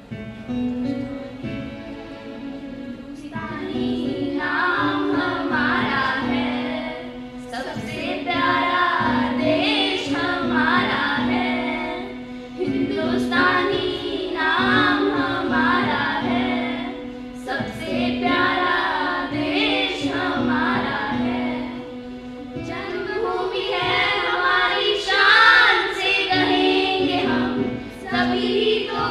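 A group of children singing a Hindi song together in phrases of a few seconds, over a steady held accompaniment note. The voices come in about three and a half seconds in.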